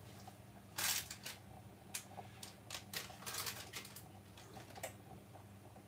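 Greaseproof paper crinkling and spinach leaves rustling as hands press the vegetables down into a lined baking tray, in short irregular bursts, the loudest about a second in.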